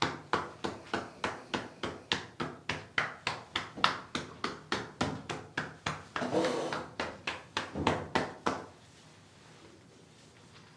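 Rhythmic manual massage strokes, a therapist's hands working the patient's body at about three sharp hits a second, with a longer rubbing swish about six seconds in. The strokes stop about eight and a half seconds in.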